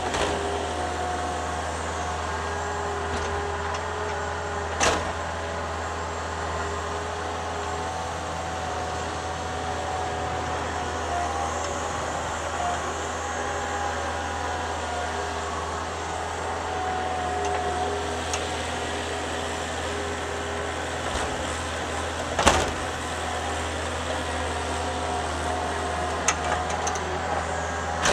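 Thomas 153 skid steer running steadily while it digs snow with its bucket. Two sharp knocks stand out, about five seconds in and again about twenty-two seconds in.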